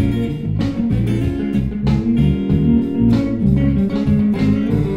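Instrumental intro music led by guitar, with low bass notes and a steady beat.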